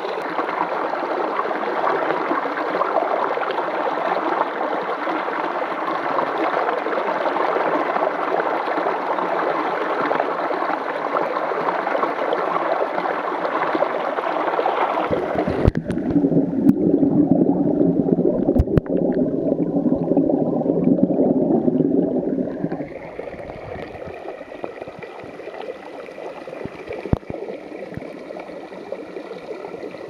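Small waterfall splashing steadily onto rocks and into a shallow pool. About halfway through the rush turns suddenly lower and muffled, with a few sharp knocks, and it is quieter for the last several seconds.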